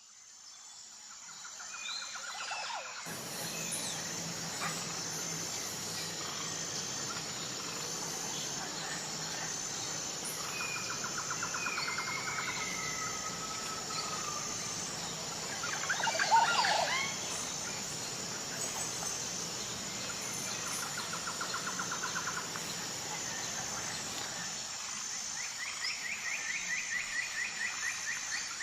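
Outdoor nature soundscape fading in: several birds chirping and trilling over a steady high-pitched insect drone, with one louder burst of calls about halfway through.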